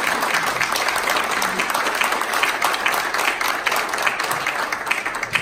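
Audience applauding: a steady round of many hands clapping.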